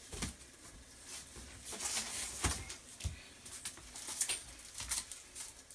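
Hands handling the drone's plastic packaging and parts: scattered light rustles, clicks and knocks at irregular intervals.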